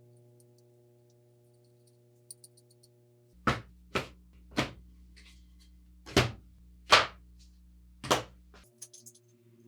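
Six sharp knocks or strikes, irregularly spaced, starting about three and a half seconds in, over quiet background music with held chords.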